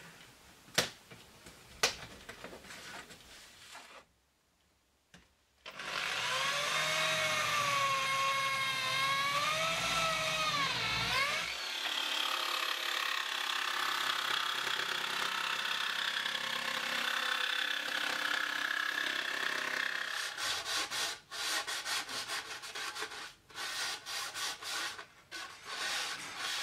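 Electric jigsaw cutting a thin wooden panel, its motor pitch wavering up and down at first, then running steadily through the cut; in the last few seconds the sawing breaks up into short stops and starts. Two sharp clicks come before it, in the first two seconds.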